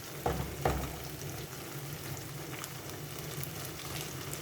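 Spiced gravy sizzling in a pan over a low flame, with two soft thumps in the first second as the tempeh pieces are tipped in.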